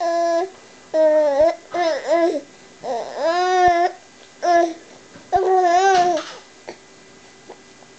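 A baby with the hiccups cooing and squealing: about six separate high-pitched coos and squeals, several of them rising and falling in pitch, with a few short clicks between them.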